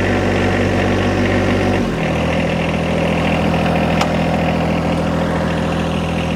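John Deere 1025R compact tractor's three-cylinder diesel engine running steadily. About two seconds in, its pitch drops and settles at a lower, steady speed. A single sharp click comes about four seconds in.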